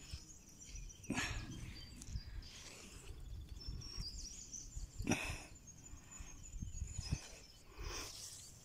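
Rustling of dry undergrowth in three short bursts, about a second in, five seconds in and seven seconds in, with faint high birdsong behind it.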